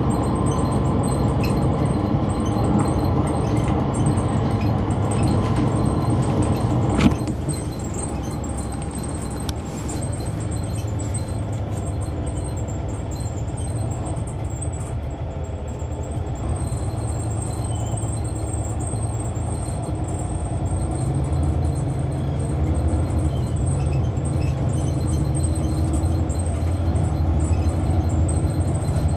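On-board sound of a 2004 Neoplan AN459 articulated transit bus under way, its Caterpillar C-9 ACERT diesel engine running steadily. A sharp knock comes about seven seconds in, after which the engine sound eases, then slowly builds again.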